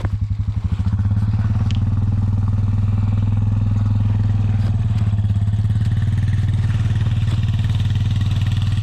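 A small engine runs steadily at idle: a low, fast-pulsing drone that gets a little louder about a second in and then holds even.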